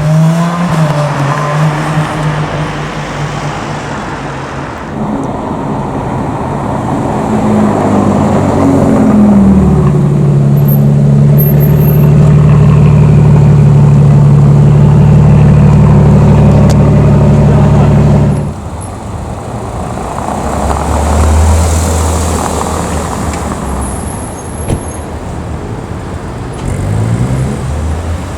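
Car engines in street traffic. One engine rises in pitch, then holds a loud steady note for about nine seconds before cutting off suddenly. Quieter traffic follows.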